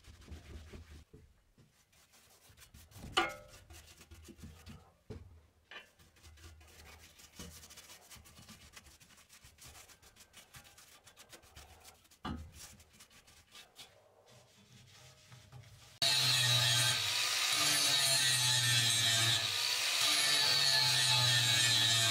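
Faint rubbing with a few light knocks as a rag wipes fluted steel crusher rollers and a brush works paint onto a steel frame. About three quarters of the way through, an angle grinder starts suddenly and runs steadily, grinding into steel; it is the loudest sound, a high whine over a low hum.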